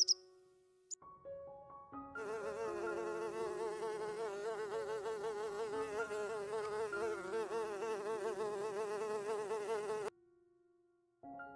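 A bee buzzing steadily, its pitch wavering up and down. It starts about two seconds in and stops abruptly near the end. Soft background music plays underneath.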